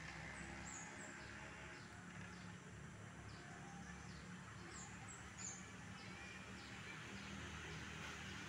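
Birds chirping in short, high, quick notes, scattered irregularly, over a faint steady low rumble.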